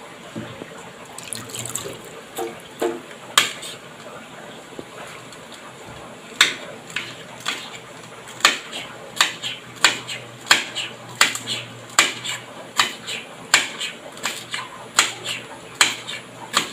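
Kitchen knife cutting vegetables on a chopping board: a few scattered strokes, then from about six seconds in a steady run of sharp chops about two a second.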